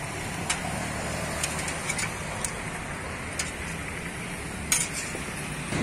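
Steady roadside traffic noise, with a few short metallic clinks of a steel ladle against serving pots and plates.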